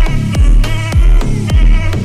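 Electronic dance music with a heavy bass: deep bass hits that drop in pitch, about two a second, under a steady synth line.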